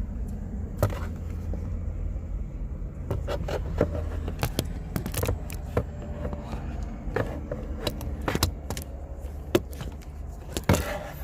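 Low steady hum of a car idling, with scattered clicks, scrapes and rustles of things being handled close to the microphone.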